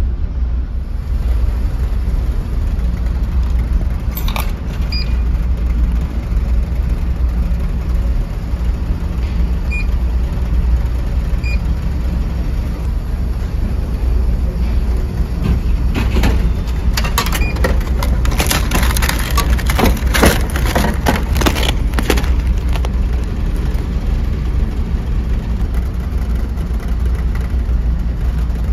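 Steady low rumble of the ferry's engines carried through the ship, heard inside a passenger lounge. A run of clicks and rattles comes between about 16 and 22 seconds in.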